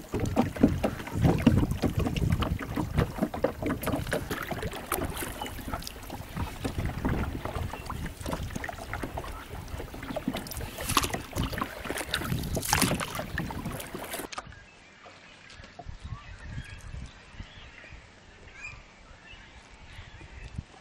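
Wind buffeting the microphone and water splashing around a boat moving across a lake, a loud, gusty rush with heavy low rumble. About two-thirds of the way through it cuts off suddenly to a much quieter background with faint scattered small sounds.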